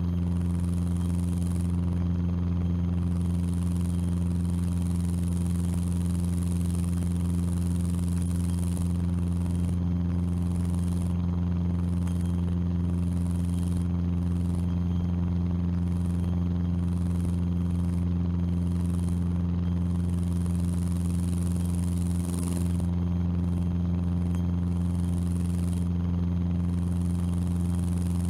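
Cessna 150's Continental O-200 four-cylinder engine and climb propeller running steadily at climb power, a constant low drone heard from the cockpit.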